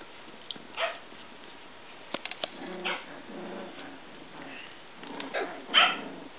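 Three-week-old Icelandic sheepdog puppies yipping while they play-fight: three short rounds of yips, the last near the end the loudest.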